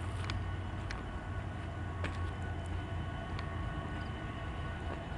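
Union Pacific AC45CCTE (GE AC4400CW) diesel locomotive running light, a steady low engine rumble with a few faint clicks.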